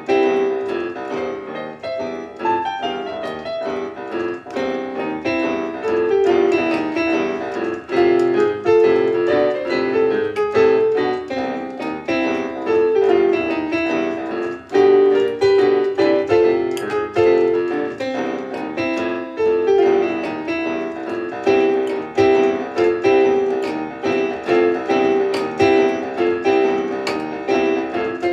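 Background piano music, a run of quick repeated notes that carries on throughout.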